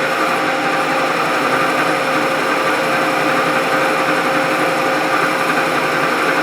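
Milling machine running steadily under cut, its cutter taking metal as the table is fed: an even mechanical drone with a steady hum of several tones.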